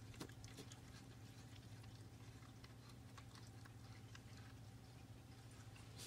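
Faint, irregular wet clicks of an opossum chewing chicken, over a low steady hum.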